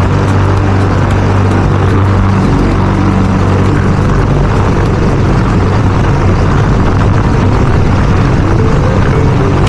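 Pull-start walk-behind gasoline lawn mower running steadily while mowing grass.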